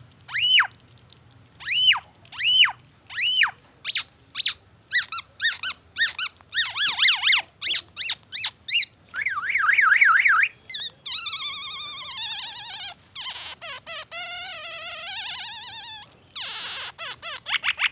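Black-naped oriole singing. It opens with spaced, arched whistled notes that come faster and faster, breaking into rapid chirps and a trill about nine seconds in, then long runs of varied buzzy and warbling phrases mimicking white-rumped shama song.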